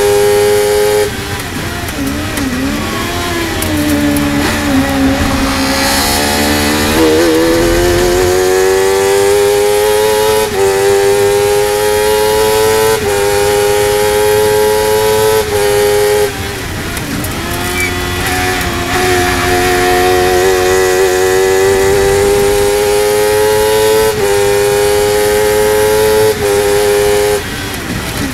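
Honda CBR1000RR inline-four motorcycle engine in a Spire GT3 race car, driven hard on track. Its pitch climbs through the gears with quick upshifts every couple of seconds. It drops low and wavers through slower corners a few seconds in and again around the middle, then pulls up again.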